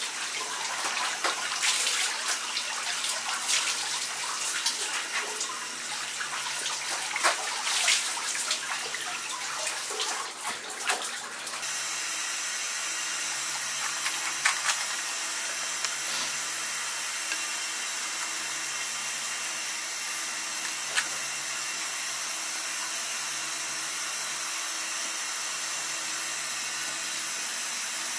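Scraping strokes of a fish scaler over a whole yellowtail's skin, mixed with running water, for about the first eleven seconds. It then changes to a steady hiss of tap water running into a steel sink, with an occasional light click.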